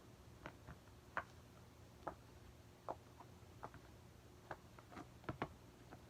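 Scattered light clicks and taps of small fidget toys being handled and set down, about one a second, coming closer together near the end.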